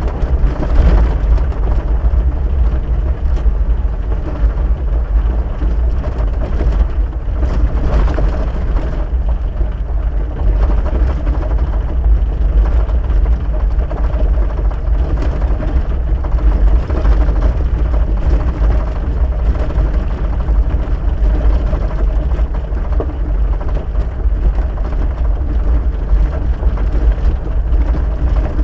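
Steady low rumble of a vehicle driving on a gravel dirt road, heard from inside the cab: engine drone mixed with tyre and road noise.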